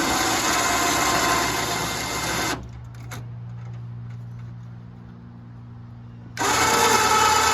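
A loud motor-driven machine runs for about two and a half seconds and stops, leaving a steady low hum. It starts up again near the end.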